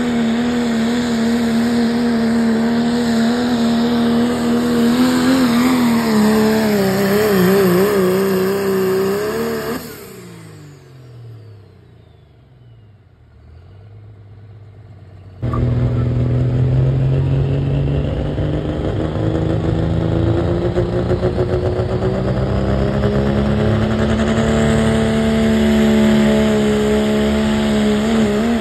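Diesel 4WD pickup truck engine running hard at high revs under load in a pull, its pitch wavering for a few seconds. About ten seconds in it winds down with falling pitch as the pull ends. After a sudden jump back to full loudness, another diesel pickup is heard pulling, its engine pitch climbing slowly.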